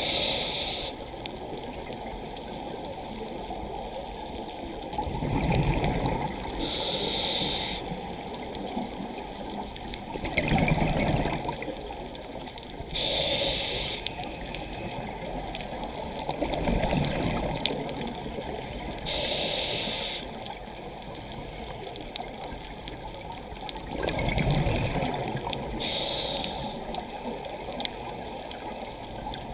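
Scuba diver breathing through a regulator underwater: a short hiss of inhalation about every six seconds, alternating with low gurgling rumbles of exhaled bubbles, over a steady rush of water.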